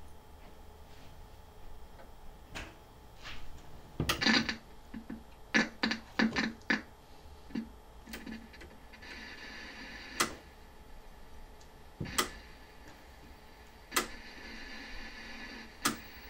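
Sharp clicks of an old portable television's rotary channel knob being turned, with a quick run of clicks about four seconds in and single clicks every couple of seconds after. Static hiss from the set comes in between the later clicks.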